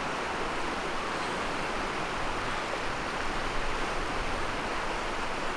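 Steady rushing of river water, an even hiss of current.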